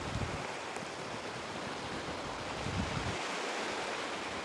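Steady rushing of wind and shallow water, with low gusts of wind buffeting the microphone now and then.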